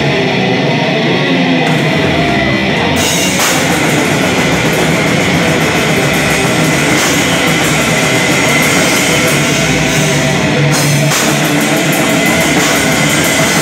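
A live extreme metal band playing loud and without a break: distorted electric guitars over a pounding drum kit. The sound gets brighter about three seconds in and dips briefly in the top end shortly before the end.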